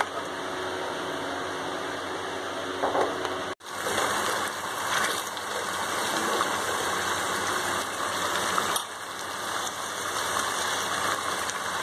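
Green chilli sauce boiling and bubbling in a pan as it is cooked down to thicken, heard as a steady noisy hiss that breaks off for an instant about three and a half seconds in.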